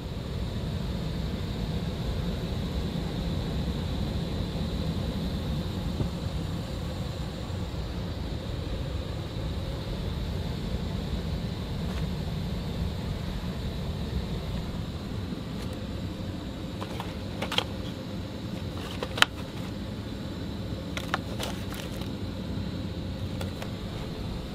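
Steady low rumble of the Dassault Falcon 2000 business jet, with a faint steady whine on top. A handful of sharp clicks come in the second half, the loudest about three-quarters of the way through.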